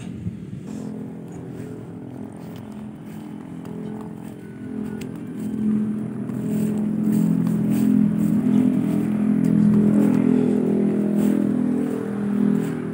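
A vehicle engine running with a steady hum, swelling louder from about five seconds in and loudest near ten seconds.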